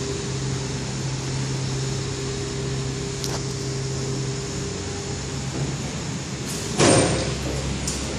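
Fujitec 4200 kg freight elevator car travelling between floors: a steady low hum with a higher whine that stops about five and a half seconds in as the car slows. About seven seconds in there is a sudden loud noise.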